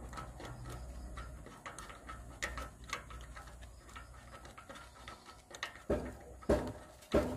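Irregular light clicks and knocks, with three louder knocks near the end.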